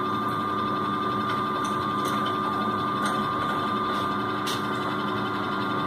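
Electric motor and epicyclic gear train of a lab test rig running steadily with an even hum and whine of several steady tones, while load is slowly applied to its loading drum through a rope brake. A few faint ticks sound over it.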